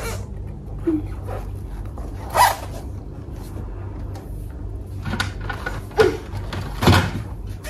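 Plastic toy vehicles knocking and rattling as a child rummages through a basket of toys: rustling with a handful of short clatters, the loudest about two and a half seconds in and near the end.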